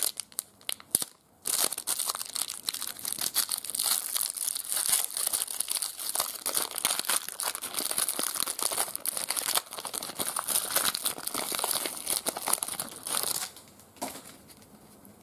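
Foil trading-card pack wrapper crinkling and tearing as it is peeled open by hand, a dense crackle that starts about a second and a half in and stops a couple of seconds before the end.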